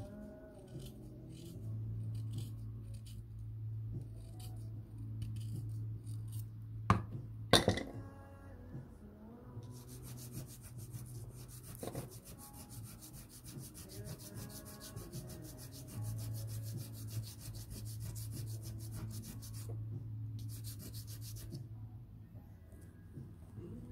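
A knife shaving a pastel pencil in short scraping strokes, with two sharp clicks about seven seconds in. From about ten seconds the pencil tip is rubbed on sandpaper in rapid, even back-and-forth strokes for about ten seconds, with one more short burst near the end. Soft background music runs underneath.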